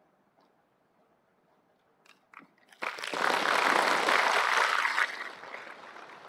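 Audience applauding: a few scattered claps, then a loud burst of applause from about three seconds in that stops abruptly a couple of seconds later and trails off.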